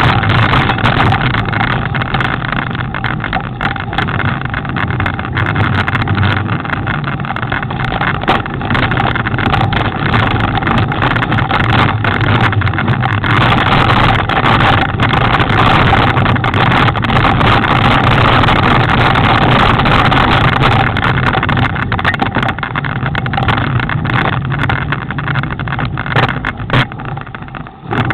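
Steady rumble and rattle of a mountain bike rolling over a rough dirt-and-rock trail, picked up through a handlebar-mounted camera, with many small knocks from the bumps. It eases off and turns uneven near the end.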